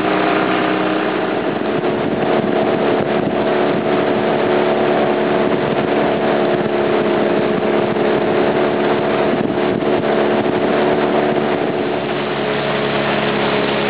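Small outboard motor running at a steady speed, pushing an inflatable boat, over a steady hiss; it eases off slightly near the end.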